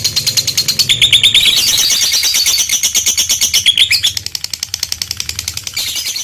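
Lovebird giving its long 'ngekek' chatter: a fast, unbroken string of shrill notes. It drops in loudness about four seconds in. This is the long chatter (ngekek panjang) of an excited, fighting-mood lovebird.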